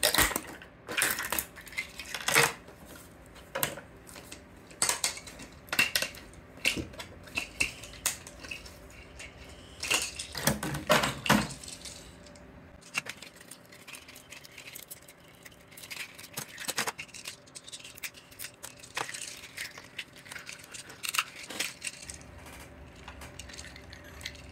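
Sharp clicks and clatter of hard 3D-printed silk-filament plastic: the parts snapping free as the flexible build plate is bent, then the jointed segments of an articulated axolotl clacking against each other and the table as they are handled. The clicks come thick and fast at first and grow sparser about halfway through.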